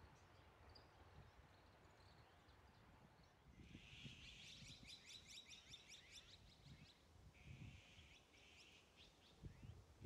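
Faint harsh, raspy calls of azure-winged magpies, in two bouts: a rapid chattering run starting a few seconds in and a shorter one after it, over a faint low rumble of wind or handling.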